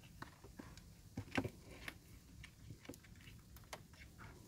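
Faint, irregular clicks and scratches from a live mud crab being handled and bound with twine in gloved hands, with a louder pair of clicks a little over a second in.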